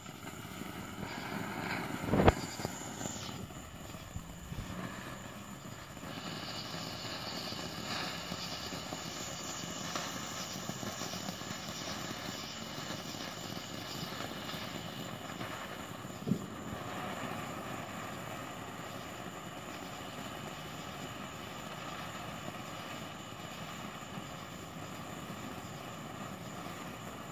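Ground firework fountains spraying sparks with a steady hiss, broken by a loud bang about two seconds in and a second, shorter bang at about sixteen seconds.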